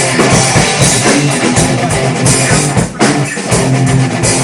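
Live rock band playing: drum kit beating out a steady groove under electric guitar, loud and continuous.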